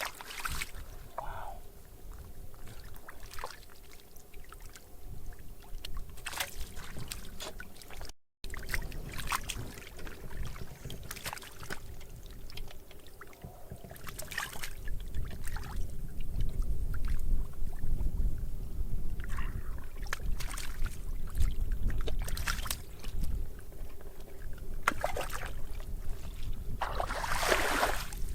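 Water splashing and sloshing in scattered bursts as fish are caught by hand in shallow water, with a low rumble through the second half and a brief cut to silence about eight seconds in.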